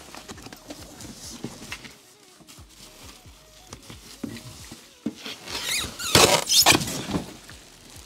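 Packaging scraping and squeaking as a heavy boxed bench sander is handled, with a loud burst of scraping and squeaks about six to seven seconds in.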